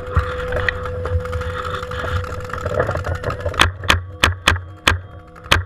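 Paintball marker firing a string of sharp pops, about three shots a second, starting about two-thirds of the way in, over a low steady rumble.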